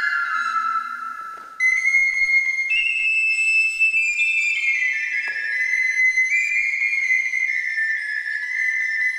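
A small wooden flute playing a slow melody of long held notes. It pauses briefly about a second and a half in, then starts a new phrase that wanders down and up in small steps.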